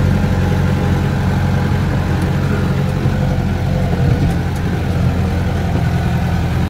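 Off-road jeep's engine running steadily while driving on a muddy track, heard from inside the cab, with a constant low pitch.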